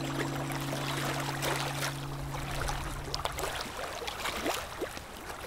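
Water flowing over rocks in a stream, a steady rushing hiss, under a held music chord that fades out about three and a half seconds in.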